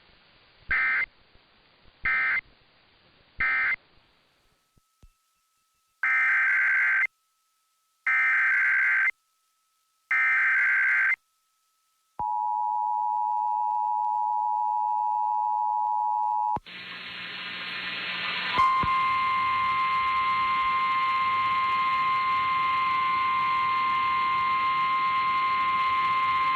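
Emergency Alert System signalling: three short SAME data bursts that close the previous message, then three longer SAME header bursts and the two-note EAS attention tone for about four and a half seconds. Then a hissy relayed weather-radio signal carries a single steady alert tone of about 1 kHz, typical of the NOAA Weather Radio 1050 Hz warning alarm, for about nine seconds.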